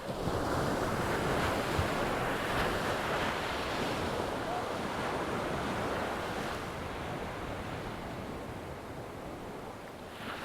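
Ocean surf breaking on shore: a wash of water swells just after the start, slowly fades over several seconds, and the next wave comes in at the very end. Wind buffets the microphone.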